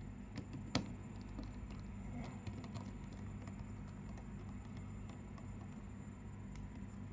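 Small clicks and taps of a smartphone's parts being handled as flex-cable connectors are pressed back onto the board, with one sharper click about a second in, over a steady low hum.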